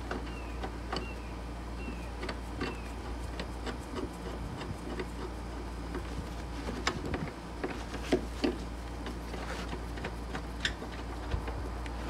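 Scattered light clicks and metallic knocks of hand tools and 14 mm bolts being handled at a car's floor-mounted seat belt anchor, coming more often in the second half, over a steady low hum.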